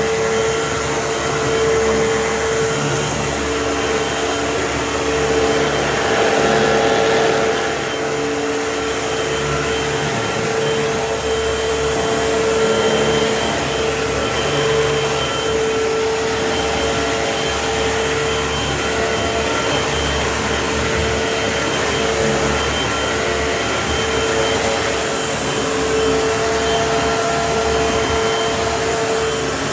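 Vacuum cleaner running steadily with a constant motor whine, its loudness swelling and easing a little as it goes.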